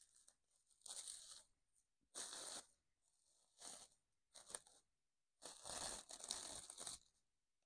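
Clear plastic bag wrapped around a potted plant rustling as it is handled and pulled open by hand, in several short bursts, the longest about a second and a half near the end.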